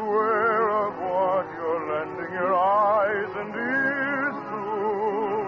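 Operetta singing with orchestra in an early-1950s radio broadcast recording: a singer holds long notes with a wide, even vibrato, moving between several sustained pitches. The sound is dull and thin, with no high end.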